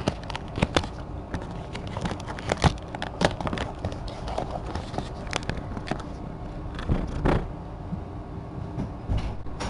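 Close handling noise on a camera: scattered clicks, knocks and rubbing as a cat presses against it and a hand adjusts it, over a steady low hum.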